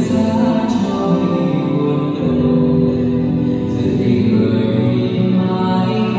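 Music played back through King CS-412 wall-mounted karaoke speakers in a sound-system test: slow music with long held notes that shift about two seconds in and again near four seconds.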